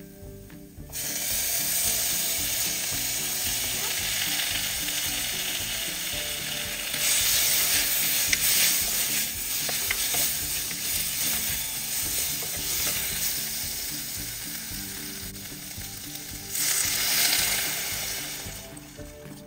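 Onions, tomato and spices frying and sizzling in a clay curry pot while a wooden spoon stirs them. The sizzle swells about a third of the way in, then surges again near the end as water is poured into the hot pot, and dies down.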